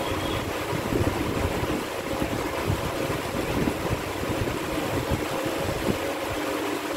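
Steady rushing background noise with a faint low hum throughout.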